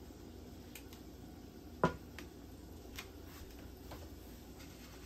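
Light kitchen clatter: one sharp knock about two seconds in and a few lighter clicks, over a low steady hum.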